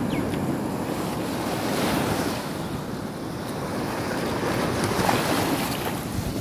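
Sea waves washing up the beach against the rocks, swelling about two seconds in and again about five seconds in, with wind buffeting the microphone.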